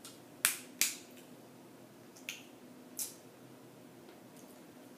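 Snow crab leg shells being cracked and snapped apart by hand: two sharp cracks close together about half a second in, then two fainter ones a couple of seconds later.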